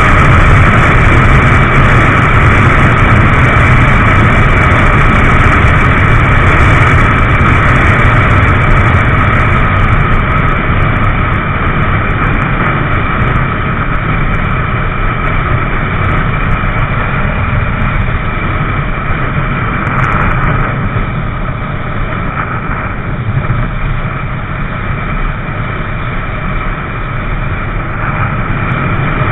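Motorcycle riding at freeway speed: the engine runs steadily under heavy wind noise on the rider's microphone, with a steady high whine over it. The sound eases off somewhat about two-thirds of the way through.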